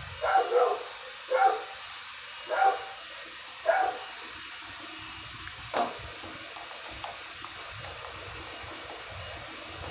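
A dog barking four times, about a second apart, followed by a single sharp click.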